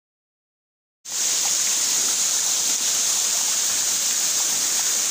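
A small rocky waterfall rushing and splashing, a steady hiss of falling water that starts suddenly about a second in after dead silence.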